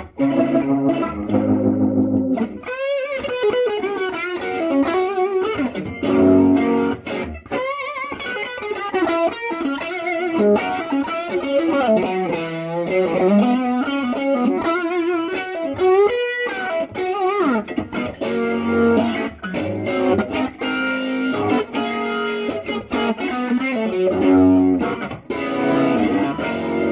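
Electric guitar played through a 1966 Leslie Model 16 (Fender Vibratone) rotating-speaker cabinet, giving chords and single notes a warbling, wavering swirl. The wobble is strongest in the long middle stretch, with steadier-sounding chords at the start and near the end.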